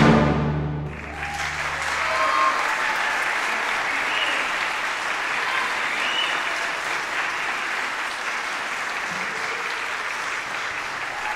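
A concert audience applauding steadily as the orchestra's final chord dies away, its low notes fading out within the first two seconds.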